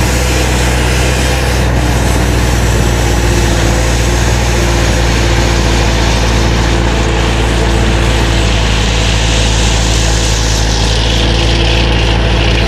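Diesel engine of a digging machine running steadily at a constant pitch, with a brighter hiss joining near the end.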